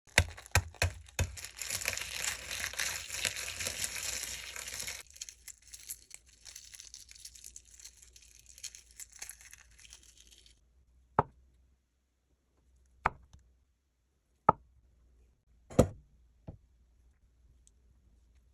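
A few sharp clicks, then a dense crackling, crinkling noise that thins out after about five seconds and stops suddenly about ten seconds in. Five separate sharp knocks follow a second or two apart.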